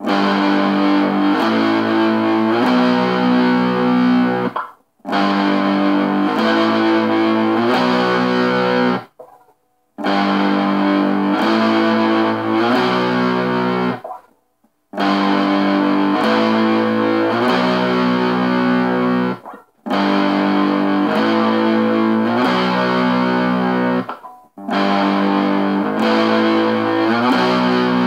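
Distorted electric guitar, a Squier Stratocaster tuned to drop D, strumming a repeating chord riff. Each phrase moves through about four chord changes over four and a half seconds, then stops dead for a moment before starting again, six times over.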